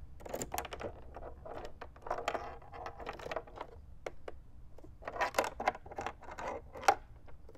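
Irregular metal and plastic clicks, scrapes and a key jangling as a keyed parking-brake lock is worked onto the brake mechanism by hand and locked, with a few sharper clicks in the second half.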